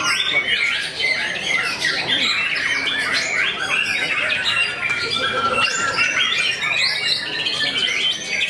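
White-rumped shamas (murai batu) singing without pause, many songs overlapping in a dense chorus of quick, varied whistled phrases.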